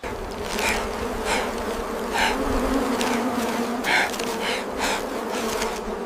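A swarm of flies buzzing in a steady drone, with brief louder buzzes every second or so as single flies pass close.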